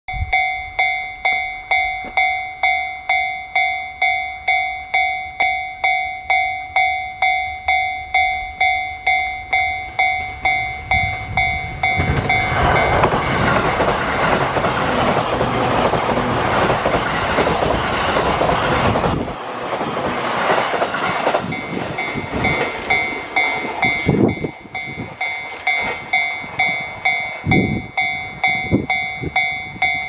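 Japanese level-crossing warning bell ringing, a pulsing electronic ding about twice a second. About twelve seconds in, a JR East E531-series electric multiple unit passes for about seven seconds and its rushing wheel and running noise covers the bell. The bell is then heard ringing again, with a few sharp knocks near the end.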